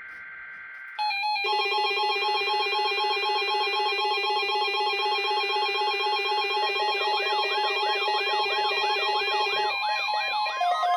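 Electronic alert tones over a NOAA weather radio broadcast. A brief buzzy data-burst tone gives way about a second in to a steady chord of several electronic tones, and a tone warbling up and down about three times a second joins about seven seconds in.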